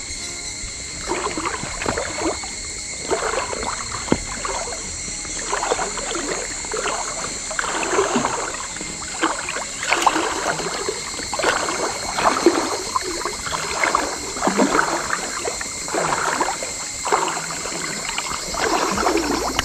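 Water swishing and sloshing in a rough rhythm of about one stroke a second as a float tube is kicked along with fins, over a steady high drone of summer insects.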